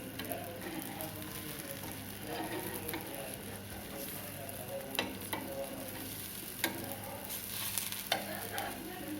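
Gram-flour batter pancake (pudla) sizzling in oil on a hot pan, a steady hiss, with a few sharp clicks in the second half.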